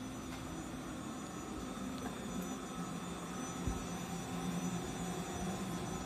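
Iyotetsu 2100-series electric tram at the platform, its onboard electrical equipment giving a steady low hum that grows a little louder in the second half.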